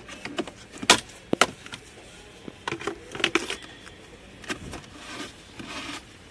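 Plastic clicks and knocks, then scraping and rustling, as the cabin air filter cover behind the glove box is unclipped and the filter is slid out.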